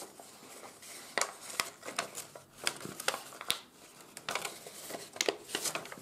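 A sheet of 80 g/m² office paper being opened out and refolded by hand: irregular rustling and crinkling with several sharp crackles as the creases give.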